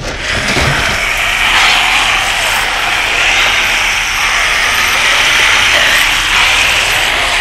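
Loud, steady crackling static noise, as of a jammed signal, starting abruptly as the music cuts off.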